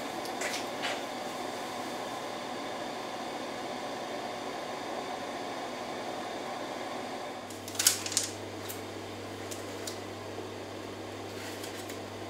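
Steady hum of a stacked-tray food dehydrator used as a pollen dryer, its fan blowing continuously under the trays. About eight seconds in, two sharp knocks stand out.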